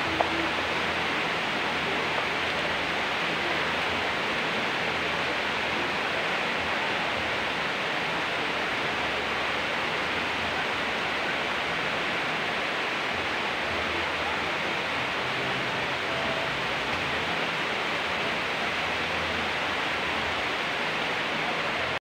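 Steady rainfall: an even, unbroken hiss of rain on concrete and leaves.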